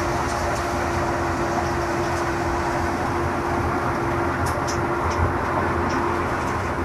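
Stationary grain thresher (patoz) running steadily while threshing, an even mechanical drone with a constant hum and low rumble, and a few faint ticks around the middle.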